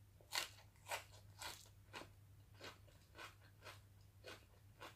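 Faint chewing of a mouthful of raw leafy greens, with soft crunches about twice a second.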